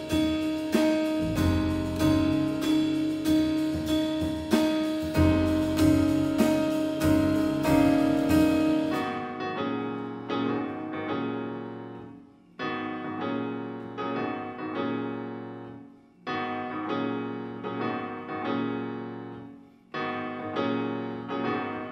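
Live jazz combo playing, with drum kit and cymbals and long held notes. About nine seconds in, the drums and held notes drop out and the piano plays alone: chords that ring and die away, with three brief pauses.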